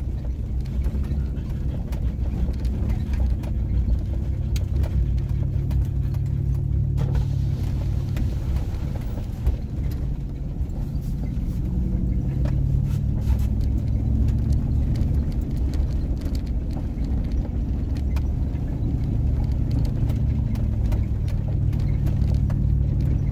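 Chevrolet Silverado pickup truck driving slowly over a rough dirt trail: a steady low engine and tyre drone with frequent clicks, knocks and rattles as the truck is jolted over bumps. It rides on old shocks and rear leaf springs, so it rides harshly.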